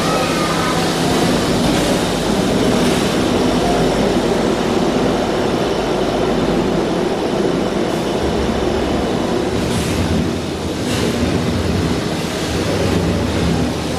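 Coal-fired steam locomotive standing at a station platform, giving off a loud, steady rush of steam and machinery noise, with a couple of short sharper sounds about ten seconds in.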